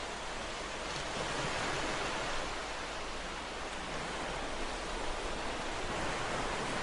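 Ocean surf: a steady rushing wash of waves that swells gently about a second in and again near the end.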